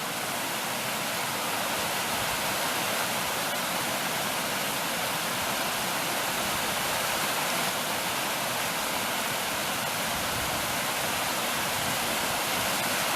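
Waterfall in high flow: a steady, even rush of falling water with little low rumble.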